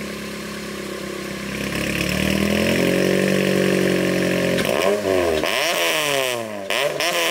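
Honda Civic Type R EP3's 2.0-litre K20 four-cylinder engine revving through its aftermarket exhaust. It holds steady revs, rising a little about two seconds in, then takes a few quick throttle blips near the end with the revs dropping and climbing again.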